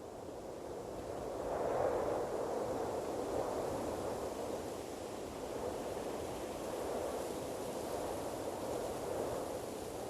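Ocean waves, a steady rush of surf that builds to a swell about two seconds in, then gently rises and falls.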